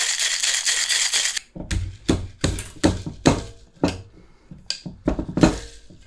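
Ice rattling inside a steel shaker tin over a pint glass for about a second and a half, stopping abruptly. Then about ten separate knocks at irregular intervals as the shaker is struck to break the seal of the tin, which has frozen and contracted onto the pint glass.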